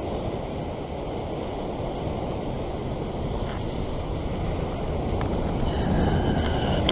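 Ocean surf breaking and washing over a rock platform, a steady rushing noise that grows louder toward the end as a bigger wave comes in.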